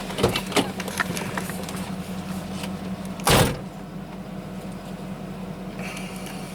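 Van engine running with a steady low hum, small clicks and knocks near the start, and a single loud thud a little over three seconds in.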